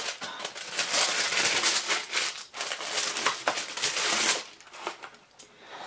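Tissue paper crinkling and rustling as a cardboard gift box is unpacked, with a few light knocks of the box. The rustling stops about four and a half seconds in.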